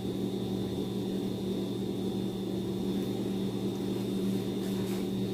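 Steady electrical hum of a running appliance or motor at a low pitch, with a faint high whine above it. There is a light rustle of paper near the end.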